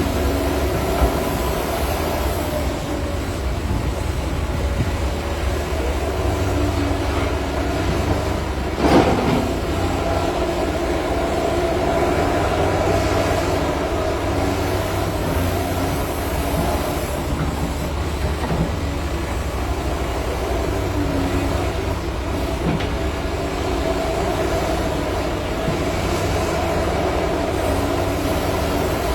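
Heavy diesel engine and hydraulics of a Cat 330 excavator running steadily under load while digging, with one brief loud clunk about a third of the way through.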